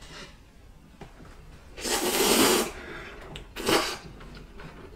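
A person slurping buckwheat soba noodles: one long, loud slurp about two seconds in, then a shorter one about a second later.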